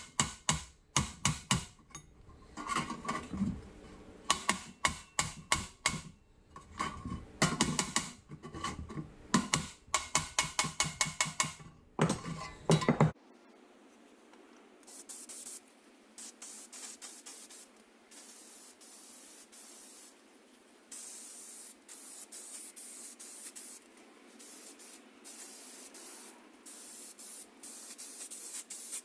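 A small hammer striking a sheet-steel Tonka truck part in quick runs of ringing blows, straightening the metal. About halfway through this gives way to an aerosol spray can hissing in repeated short bursts as paint is sprayed onto the steel parts.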